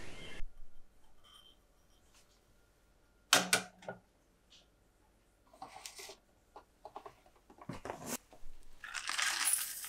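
A sharp glassy clink with a short ring about three seconds in as a glass mixing bowl is set on the metal pan of a kitchen scale, followed by a few softer taps and clicks of the bowl and scale. A hiss builds near the end.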